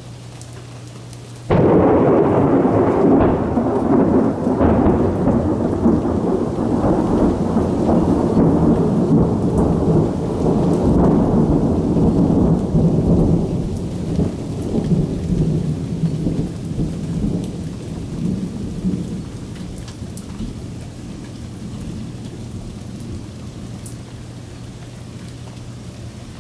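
A loud thunderclap breaks suddenly about a second and a half in and rolls on as a long rumble, fading slowly over the following twenty seconds. Steady rain falls underneath it.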